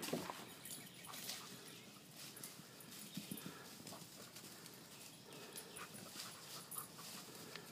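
Faint, scattered rustling and crackling of leafy branches and twigs as a dog pushes through a pile of cut tree limbs, searching for a ball.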